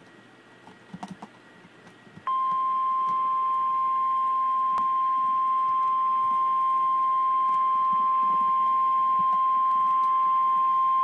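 NOAA Weather Radio warning alarm tone, a single steady 1050 Hz beep that starts abruptly about two seconds in after faint hiss and clicks. It signals that a severe thunderstorm warning message follows.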